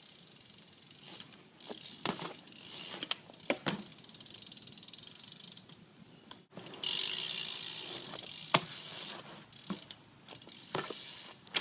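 BMX rear hub freewheel ratchet clicking as the bike coasts, buzzing loudest for a couple of seconds past the middle, with scattered sharp knocks from the bike during flatground tricks.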